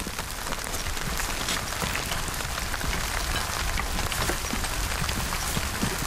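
Steady rain falling, a constant hiss with many small drop ticks, over a steady low rumble.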